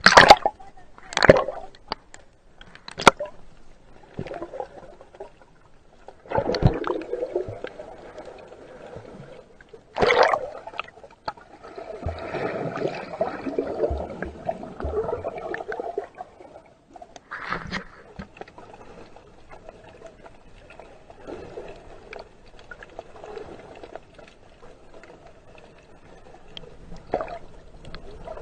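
Sea water splashing and sloshing around an action camera at and under the surface, with sharp splashes in the first few seconds and again about 6, 10 and 17 seconds in, and muffled underwater gurgling between them.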